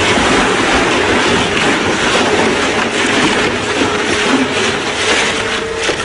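An industrial twin-shaft shredder grinds a large rubber tyre between its rotating cutter discs: loud, continuous grinding and crunching with a steady hum under it.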